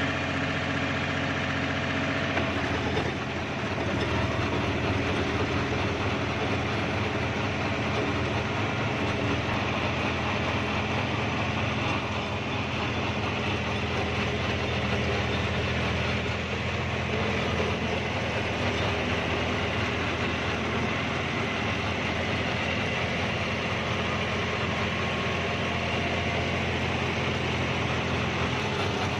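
John Deere 5310 tractor's three-cylinder diesel engine running steadily at about 1700 rpm, pulling a rotary tiller through the soil. A couple of seconds in, the even engine note is joined by a rougher, noisier churning.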